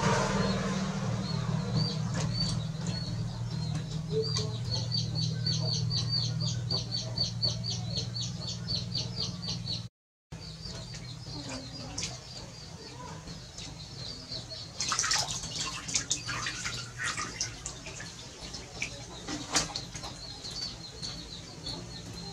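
Water splashing and sloshing in a plastic tub as a young macaque moves about in it, in bursts about two-thirds of the way through. Underneath runs a steady low hum, fading after the first half, and a fast high-pitched chirping of about five chirps a second.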